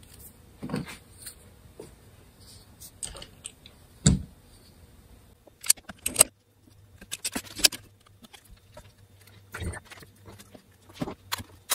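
Metal bar clamps being set and tightened on a wooden caul to clamp a glued piece onto a guitar neck heel: scattered metallic clinks, rattles and knocks, with a heavier knock about four seconds in and bunches of quick clicks after six seconds.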